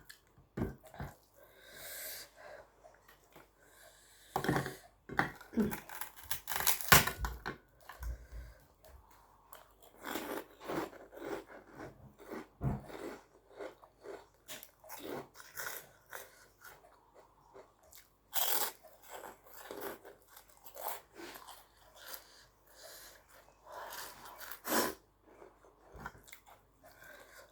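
Close-miked eating sounds: chewing and smacking, with many irregular small clicks and a few louder crunchy bursts.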